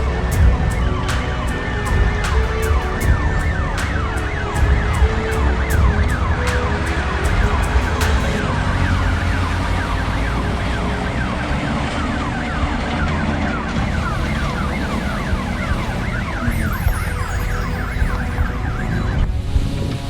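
Ambulance siren wailing over the rumble of vehicle engines.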